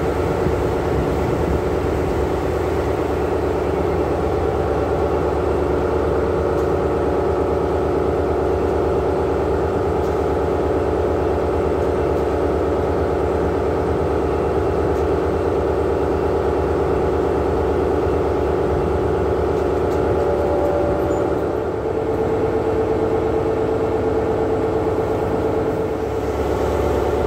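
Diesel locomotive of a standing Amtrak passenger train idling, a steady low rumble with a droning hum that shifts pitch slightly about two-thirds of the way through.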